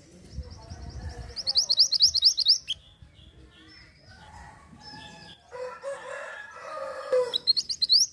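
Mantenan gunung (a minivet) calling in rapid runs of high-pitched, fast-repeated chattering notes, about a second and a half in and again near the end. Between them comes a lower, drawn-out call from another bird.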